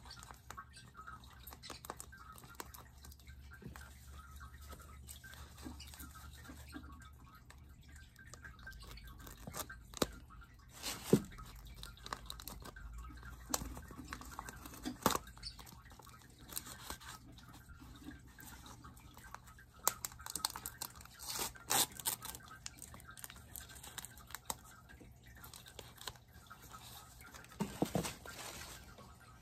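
Paper wrapping rustling and crinkling in the hands as a wrapped potted plant is unpacked, in irregular crackles with a few sharper, louder ones partway through.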